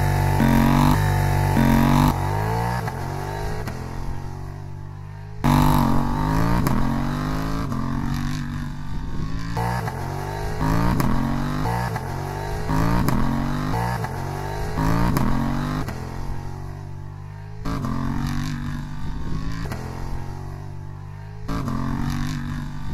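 KTM Duke 890 R's parallel-twin engine accelerating away through the gears, its pitch rising and dropping at each upshift and fading as the bike rides off. Clips of the stock exhaust and an Austin Racing V3 Mini slip-on exhaust are cut together, so the sound changes abruptly several times.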